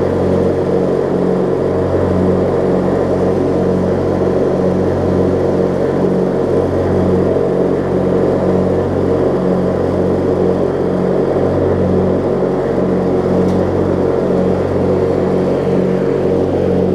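Late-1990s Yard Machines riding mower's 18 hp Briggs & Stratton opposed-twin engine running steadily while the mower drives along.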